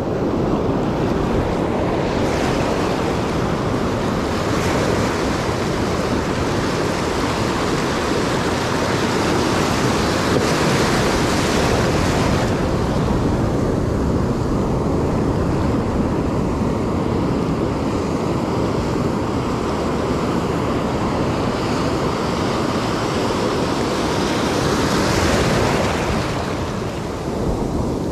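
Ocean surf washing in around the feet, swelling into a louder hiss a couple of seconds in and again near the end, with wind rumbling on the microphone.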